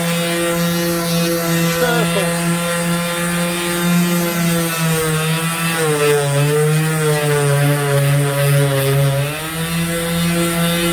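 An electric power tool's motor running steadily with a hum. Its pitch sinks for about three seconds past the middle, as if loaded against the work, then comes back up.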